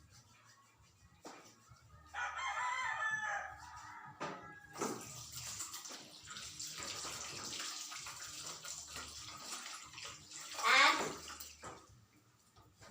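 Tap water running over hands being washed, a steady rush from about five seconds in to about ten. A rooster crows twice, once about two seconds in and again, louder, near the end.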